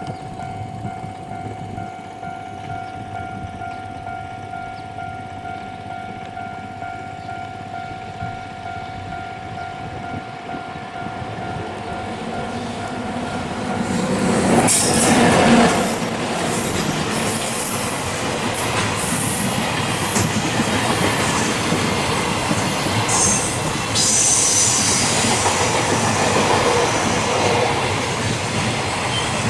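Electric locomotive hauling a container freight train, approaching with a steady tone and a slowly rising rumble, then passing close by about halfway through. After it a long string of container wagons clatters past, the wheels clicking over the rail joints with a high screech.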